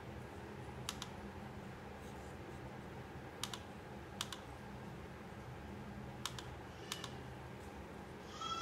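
Computer mouse clicking about six times, sharp single and paired clicks, over a low steady hum. A short high chirp sounds near the end.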